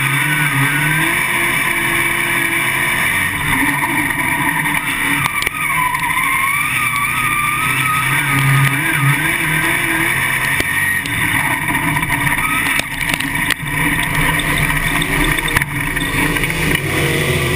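Winged outlaw late model's V8 engine running at moderate, slightly wavering revs, heard from inside the car with wind and chassis noise. There are a few short knocks from the chassis near the end.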